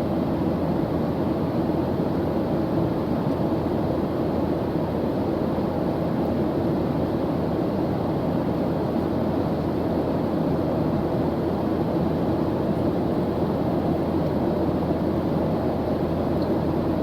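Airplane engine drone: a steady, even low rumble that does not change.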